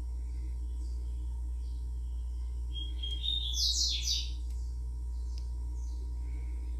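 A bird chirping, with a quick run of louder chirps about three to four seconds in and fainter chirps around it, over a steady low hum.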